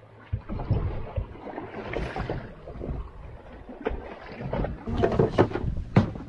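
Water slapping against the hull of a boat lying stopped at sea, with wind on the microphone and irregular low thumps. Several sharp knocks come near the end.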